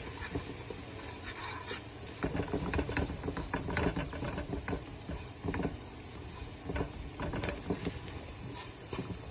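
A stirring utensil scraping and tapping against a pan in irregular strokes as flour is worked into chopped onion frying in oil, with a faint sizzle under it. The flour is being cooked in the fat until light golden, the first stage of the croquette sauce.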